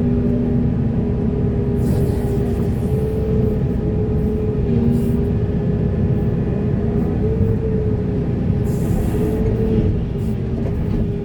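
Heavy diesel excavator working: steady low engine rumble with a wavering whine from the hydraulics as the load on them changes, and two short hissing bursts, about two seconds in and again near the end.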